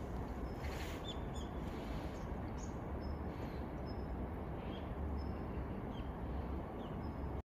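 Small birds chirping now and then, short high notes scattered through, over a steady low background rumble.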